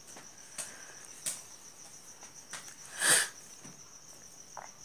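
A few short scratches of a pen writing and underlining on notebook paper, the loudest a little after three seconds in, over a steady high-pitched trill.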